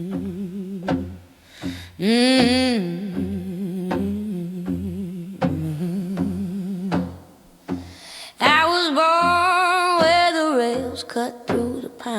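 Electric blues band playing an instrumental passage: a steady pulsing bass and a wavering guitar figure, over which a female voice hums two long wordless notes with vibrato, a short one about two seconds in and a longer one near the end.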